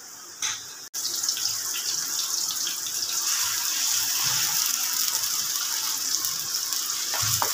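Sliced onions and whole spices sizzling in hot oil in an aluminium karahi, a steady frying hiss that starts suddenly about a second in, with faint scrapes of a wooden spoon stirring.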